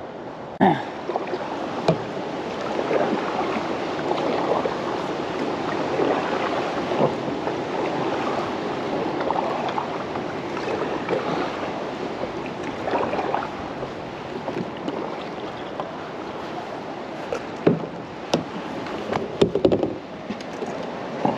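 Water splashing and lapping along a kayak hull as the kayak is paddled, swelling and easing with the strokes. Several sharp knocks come near the end.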